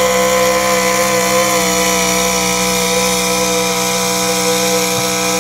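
Gas-engined 4x4 pickup truck pulling a weight-transfer sled, its engine held at high revs under full load with a loud, steady, high-pitched note.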